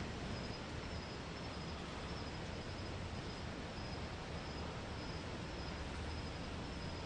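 Crickets chirping: a faint high trill at one pitch, coming and going in short repeated bursts over a steady hiss.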